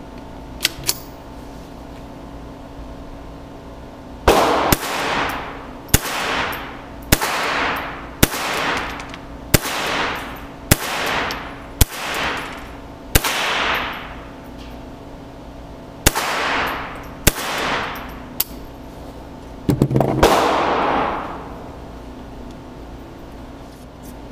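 Ruger 10/22 Tactical .22 LR semi-automatic carbine firing about ten shots roughly a second apart, with a short pause after the eighth, each crack followed by an echoing tail of about a second. A few light handling clicks come first, and a heavier, longer blast comes near the end.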